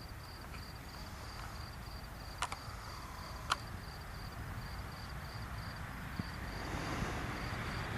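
Crickets chirping in a steady high pulsing trill. Two sharp clicks sound a few seconds in. Near the end, the rushing, jet-like noise of the approaching craft swells.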